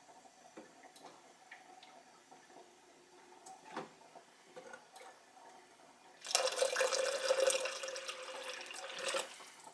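After a few faint clicks, water from an Avalon countertop water dispenser starts spitting unevenly from the spout into a plastic cup about six seconds in and runs for about three seconds. The sputter comes from air still in the newly filled lines.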